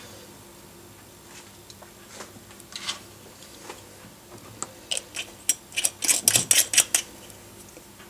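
Light clinks and taps of kitchenware: a few scattered sharp clicks, then a quick run of about a dozen between five and seven seconds in.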